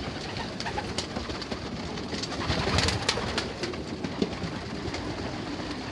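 Young racing pigeons cooing, with scattered sharp clicks and a busier flurry of noise about halfway through.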